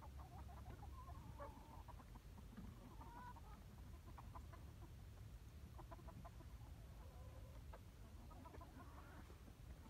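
Chickens clucking faintly and now and then in short soft calls as the flock forages, in two loose clusters over a steady low rumble.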